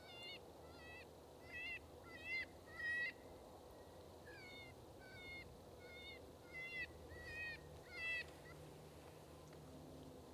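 A series of about a dozen short, squeaky bird-like calls, each with a quick rise and fall in pitch, coming in two runs with a pause near the middle; the calls stop about 8.5 seconds in.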